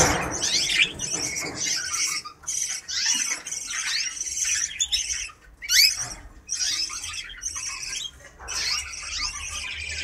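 Caged canaries singing and chirping: a dense stream of high, overlapping trills and quick rising chirps, with brief dips in between.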